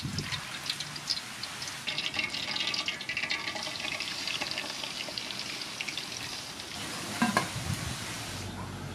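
Soybean oil pours into an aluminium pot, then a slab of pork belly goes into the oil, which crackles and sizzles. A knock comes near the end as the lid goes on, and the sizzle turns muffled.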